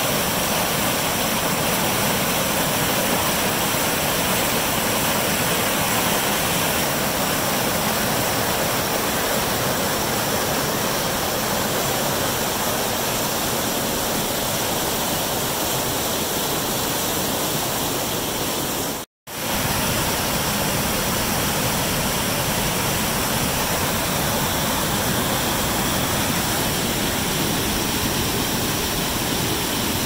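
Waterfall running high after heavy rain: a steady, loud rush of churning white water. It breaks off for an instant a little past the middle, then carries on unchanged.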